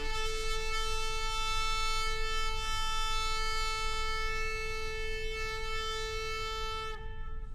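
A shofar blown in one long, steady blast that breaks off near the end.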